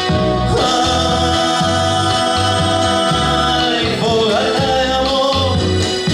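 Slow song played on guitar and piano with keyboards, a man's voice holding long sung notes over steady low bass notes.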